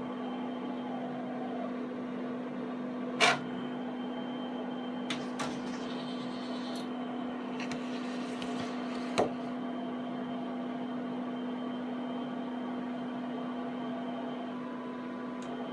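HP 7585B pen plotter humming steadily at idle while the finished plot is taken off its drum. A sharp click comes about three seconds in, then a few fainter clicks, a brief paper rustle, and another sharp click just after nine seconds.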